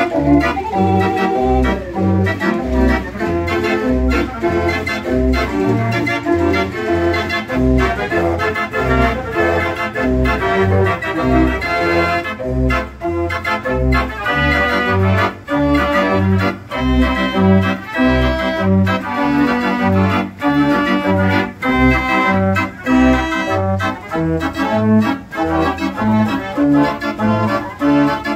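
Mortier dance organ playing a tune: its wooden pipes sound a melody and chords over a steady, regular bass beat.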